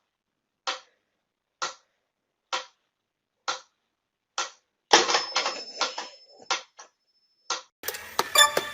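Sharp ticks at an even pace, a little faster than one a second, with dead silence between. About five seconds in they give way to a quick cluster of clicks and knocks with a thin high whine.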